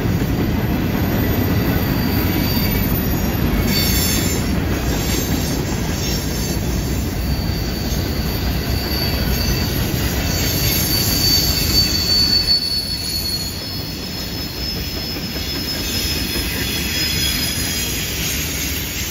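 Freight cars of a long mixed train rolling past on a curve: a steady low rumble of wheels on rail, with thin high-pitched wheel-flange squeal that is strongest about ten to twelve seconds in.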